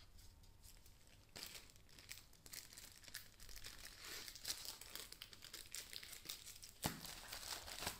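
Plastic packaging sleeves of phone cases crinkling and rustling as they are handled, starting about a second in, with a sharp tap near the end.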